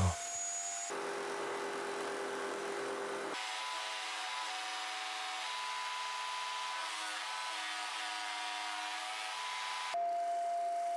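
Workshop power tools in quick succession, changing abruptly from one machine to the next: a table saw cutting plywood, then a table-mounted inverted jigsaw cutting it. About a second before the end, a disc sander takes over with a steady tone.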